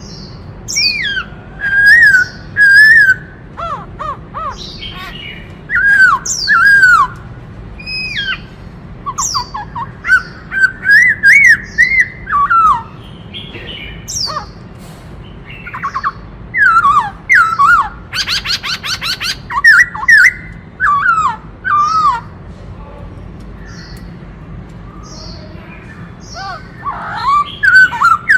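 Black-throated laughingthrush singing: loud whistled phrases that slide up and down, in short bursts with pauses between. About two-thirds of the way through comes a fast, dry rattle. The bird falls quiet for several seconds before starting again near the end.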